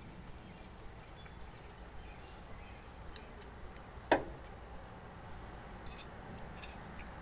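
Knife and carving fork working through a roast chicken on a wooden cutting board: quiet slicing with one sharp knock about four seconds in and a few light clicks about two seconds later.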